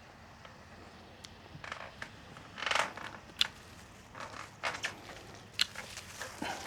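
Rose stems and leaves rustling as they are handled, with two sharp snips of hand pruning shears, about two seconds apart.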